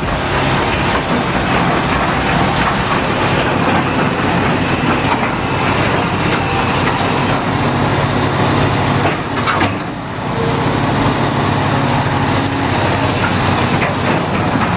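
Heavy diesel engine of an excavator running steadily under load, with a brief dip about two-thirds of the way through.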